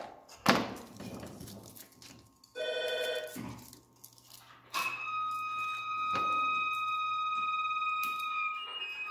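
Electronic signal tones: a short buzz about two and a half seconds in, then a steady high beep held for about four seconds.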